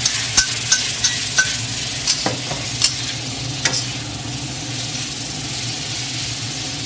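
Chicken and dried chillies sizzling in a wok, with a spatula clacking and scraping against the wok in a quick run of strokes during the first four seconds, then steady sizzling.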